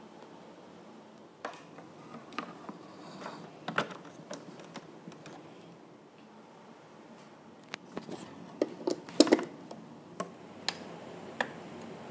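Scattered light clicks and knocks of hands handling an inkjet printer and its cable. The louder, closer-spaced ones come about eight to nine and a half seconds in.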